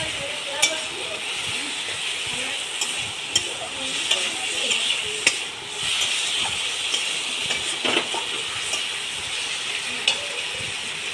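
Onion, tomato and green chilli with ground spices sizzling in hot mustard oil in a metal kadai, a steady frying hiss. A metal spatula stirs the masala, scraping and clicking against the pan several times.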